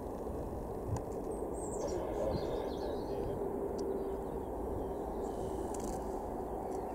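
Distant Airbus A330-200 jet engines, a steady low rumble as the airliner rolls out along the runway after landing. A few faint bird chirps come in about two seconds in.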